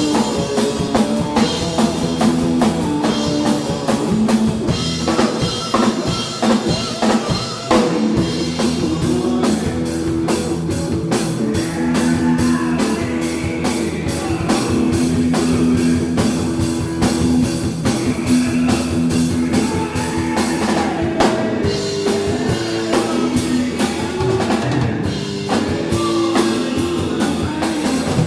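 Rock band playing live: a drum kit keeps a steady dense beat under held electric guitar notes.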